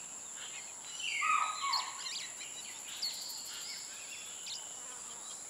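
Wild birds calling, with several short falling notes in the first couple of seconds and fainter calls after, over a steady high-pitched insect drone.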